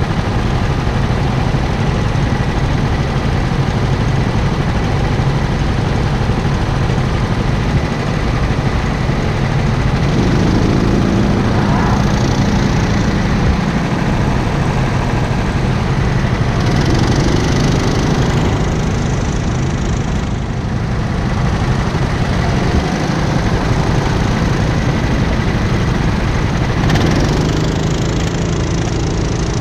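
Go-kart's small engine running hard on track, heard close up, its note rising and falling a few times as it accelerates out of and eases into the corners.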